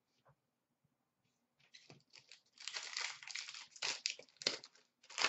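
Plastic wrapper of a 17-18 Upper Deck Artifacts hockey card pack being torn open and crumpled: a run of irregular crinkling that starts about two seconds in and grows denser.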